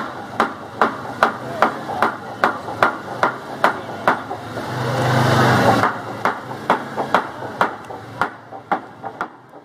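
Steady, even hammer blows, about two and a half a second, going on without a break. About five seconds in, a louder rushing noise with a low hum swells up for about a second.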